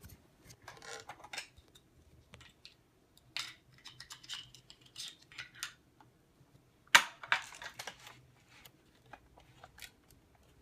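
Plastic toy playset and its packaging being handled: scattered clicks, rattles and crinkles, with the loudest crackle about seven seconds in.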